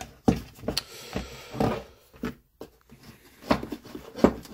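Handling of a plastic lawn mower wheel on a workbench: a string of separate knocks and scrapes as its worn rubber tread coating is pulled away from the plastic.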